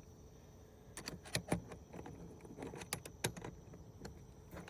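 Irregular light metallic clinks and knocks from hand tools working on hardware.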